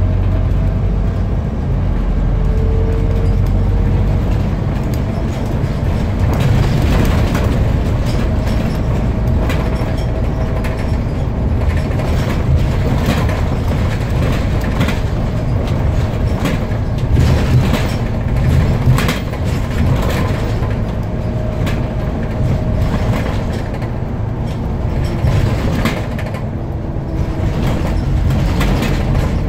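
Inside a Scania CN230UB single-deck bus under way: the diesel engine running with road noise, and frequent rattles and knocks from the body and fittings. A faint whine rises and falls in pitch now and then.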